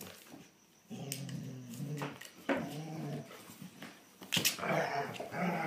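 German Shorthaired Pointers growling in rough play: a series of low, wavering growls that start about a second in, with a couple of sharp knocks from the scuffle.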